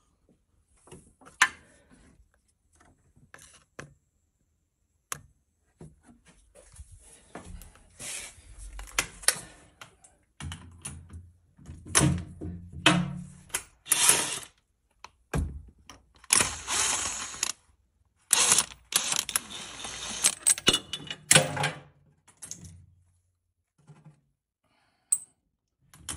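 Hand tools and car parts being worked under a car: scattered metallic clicks and knocks, then a busy stretch of rapid clicking, rattling and scraping through the middle, thinning out again near the end.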